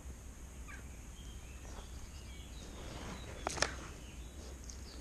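Quiet outdoor ambience: a steady low rumble with a few faint bird chirps. About three and a half seconds in, two sharp clicks a split second apart stand out as the loudest sound.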